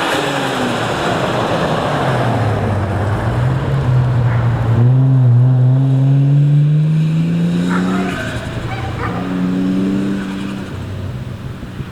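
Nissan GU Patrol's turbocharged RB straight-six engine pulling under acceleration, breathing through a new stainless steel snorkel. Its pitch climbs steadily for several seconds, drops at a gear change about eight seconds in, then pulls again at a lower pitch.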